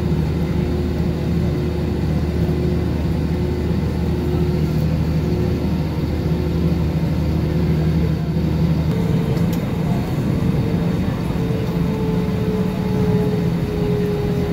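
Cabin noise of an Airbus A320neo taxiing, a steady engine hum with several held tones. About two-thirds of the way through, a low hum drops away and a higher tone comes in, sliding slowly down in pitch.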